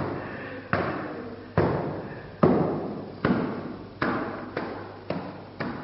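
A series of heavy thuds, each ringing on and fading for most of a second, about eight in all, coming faster from roughly one a second to two a second.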